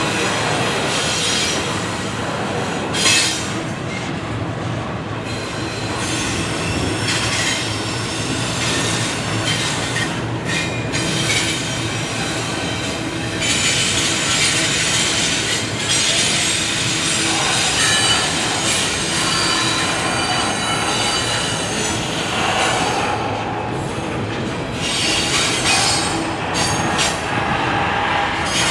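Double-stack container freight train rolling steadily past, its steel wheels running on the rails, with thin high squealing tones that come and go.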